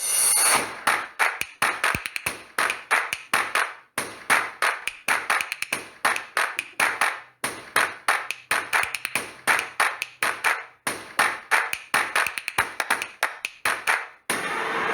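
Percussive music: sharp beats, several a second, in phrases broken by a short pause about every three and a half seconds. Near the end it cuts to a steady rushing noise.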